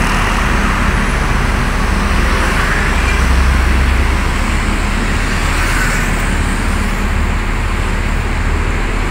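Road traffic passing close by: cars, a lorry and city buses, a steady noise of tyres and engines, with a heavier low rumble about three to four seconds in as the lorry goes past.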